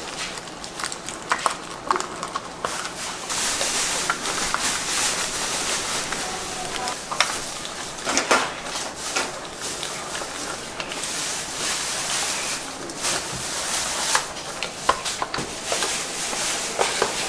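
Kitchen work sounds from yakgwa making: irregular clicks and knocks of utensils and dough handling over a steady hiss.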